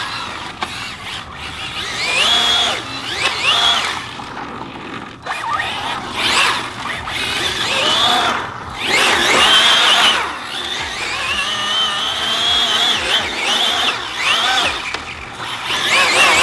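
Arrma Felony 6S brushless RC car's electric motor and drivetrain whining as it is run hard, rising sharply in pitch under throttle and dropping off again several times, with one longer stretch held at high speed in the middle.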